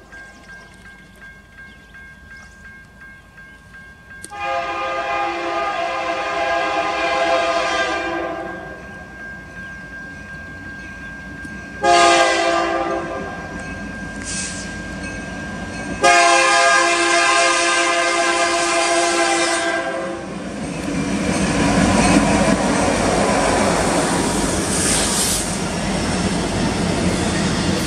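EMD SD70ACe freight locomotive air horn sounding a long blast, a short blast and another long blast, the grade-crossing signal. After the last blast the locomotives and double-stack container cars pass close by with a loud, steady rumble of engines and wheels on rail.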